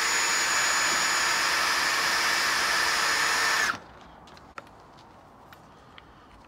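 DeWalt cordless drill running at a steady high speed with a constant whine while a small bit drills a pilot hole into the Suzuki Jimny's sheet-metal front wing. It stops abruptly a little over halfway through, followed by a few faint clicks.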